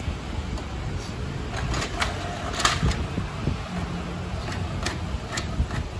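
Canon PIXMA iP2870S inkjet printer starting a print job: clicks and ticks from its paper feed and print-head carriage, with a short motor whir about halfway through. The printer is feeding paper for a test page after its conversion to a continuous ink supply system.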